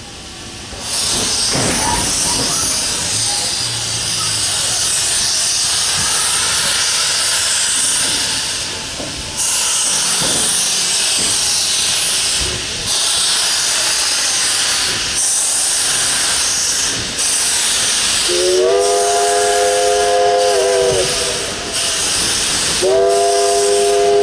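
Steam locomotive hissing loudly as steam blasts from its open cylinder cocks, the hiss breaking briefly every two to three seconds. Near the end its steam whistle sounds twice, several notes at once: the first blast rises into pitch and holds for about two and a half seconds, and the second begins shortly before the end.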